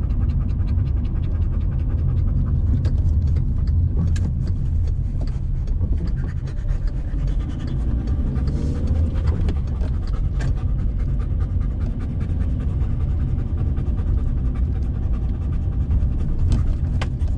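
Golden retriever panting inside a moving car, over the steady low rumble of engine and road noise in the cabin.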